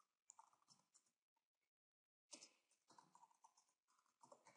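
Faint computer keyboard typing: scattered keystrokes in short runs, with a pause of about a second in the middle.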